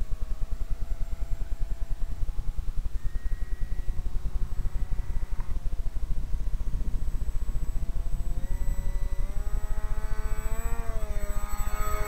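RC flying-boat seaplane's motor and propeller running, a steady whine that grows louder and bends in pitch near the end as the model passes low and close. A fast low pulsing runs underneath throughout.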